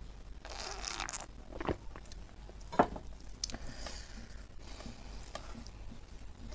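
Close-miked eating sounds: a breathy drinking sound from a steel tumbler about half a second in, a sharp knock near the middle, likely the tumbler being set down, then soft sticky clicks and smacks of fingers pulling apart braised pork trotters and chewing.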